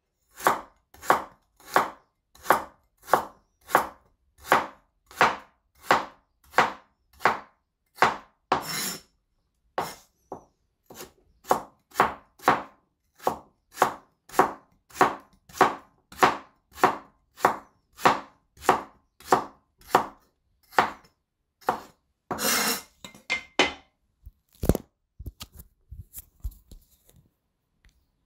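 Knife cutting a carrot on a chopping board in a steady rhythm, about three cuts every two seconds. Near the end the rhythm stops: a longer rasping sound, then a few scattered light knocks.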